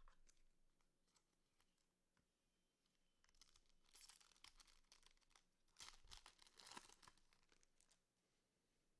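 Faint tearing and crinkling of a trading-card pack wrapper being ripped open, in two bursts about three and six seconds in, after a few light clicks.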